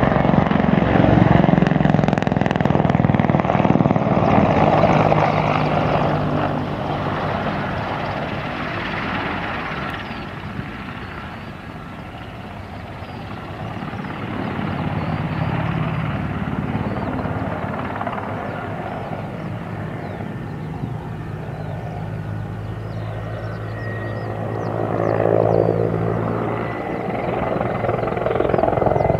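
Mi-24 twin-turboshaft attack helicopter flying a display, its rotor and turbine noise rising and falling as it manoeuvres past. The sound is loudest at the start, fades to its quietest about twelve seconds in, and swells again to a peak about twenty-five seconds in.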